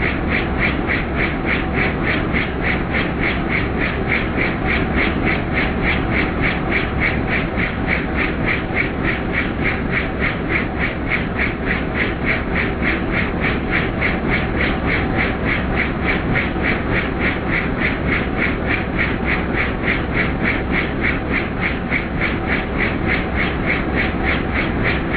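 Helicopter in flight heard from inside the cabin: steady engine and rotor noise with a rapid, even beat from the rotor blades.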